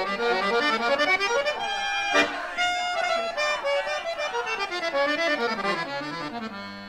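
Lively instrumental music with quick runs of notes and a stepwise run falling in pitch near the end, broken by one sharp click about two seconds in.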